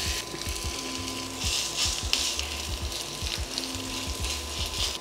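Batter-coated vegetable pancake mix sizzling in hot oil in a non-stick frying pan, the sizzle swelling twice as the fork spreads and presses it, over a steady low hum from the induction hob.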